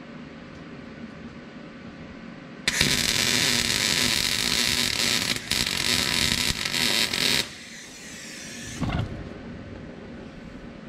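MIG welding arc sizzling and crackling on steel for about five seconds, with a brief break midway and a few stutters near the end as the weld stops. A fainter hiss trails off afterwards, and a short knock follows about two seconds after the arc stops.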